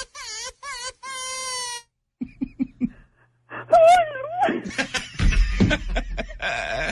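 A woman crying and wailing in a high, wavering voice over a phone line, breaking off after about two seconds; after a short pause, laughter from the studio, with a deep low rumble coming in about five seconds in.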